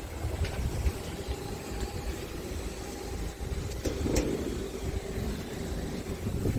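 Wind buffeting the microphone in uneven gusts, over a faint steady hum, with a brief louder rush about four seconds in.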